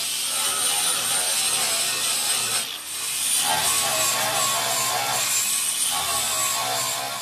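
Angle grinder working the steel sheet metal of a Volkswagen Beetle's welded inner wheel-well patch: a high whine over a harsh grinding hiss. It eases off briefly about three seconds in, then bites into the metal again.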